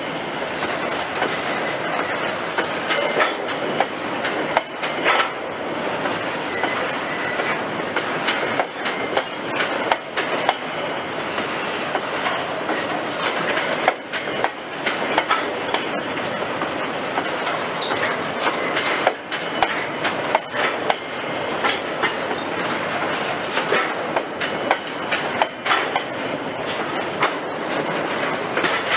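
Freight train of Chinese-built Qiqihar covered grain hopper wagons rolling past: steady wheel-and-rail noise with irregular clacks as the wheels cross rail joints.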